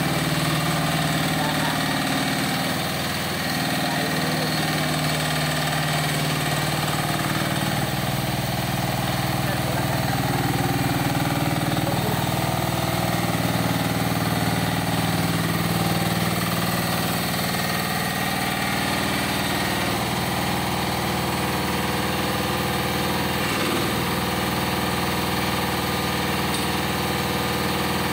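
Tigon 1-ton mini excavator's engine running steadily while the machine is driven on its tracks and its boom is worked, the engine note shifting slightly up and down under load.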